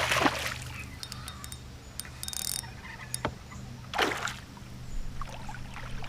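Water splashing in two short bursts about four seconds apart, the first the louder, as a freshly hooked bass thrashes at the surface, with a few light clicks in between.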